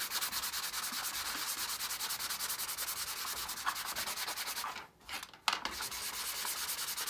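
Fine-grit sanding block rubbed back and forth over a 3D-printed plastic part, a quick, even rasping of many strokes a second. About five seconds in the rubbing stops briefly, there is a single knock, and then the strokes start again.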